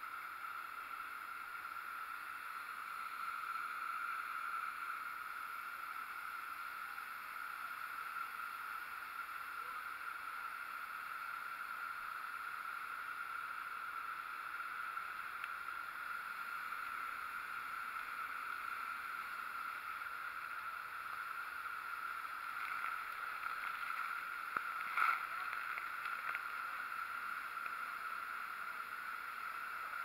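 Steady rush of a waterfall close by, water pouring down onto rock. A brief sharp knock stands out about 25 seconds in.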